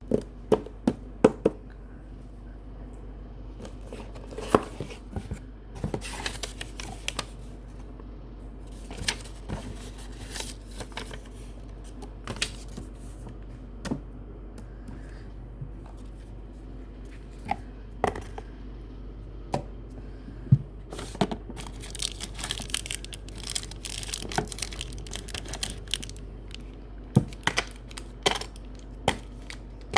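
Packaging being handled by hand: wrapping rustling and crinkling, with many scattered sharp taps and clicks and several longer stretches of rustling, the longest about two-thirds of the way through.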